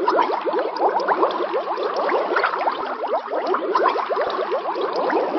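Water bubbling and gurgling, a dense steady stream of quick rising bubble sounds, used as a sound effect.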